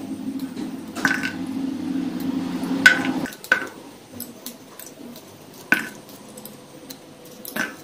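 A knife cutting green beans into a stainless steel bowl: about five sharp clicks, each with a short metallic ring, as the blade and the cut pieces strike the bowl. A low steady hum runs through the first three seconds.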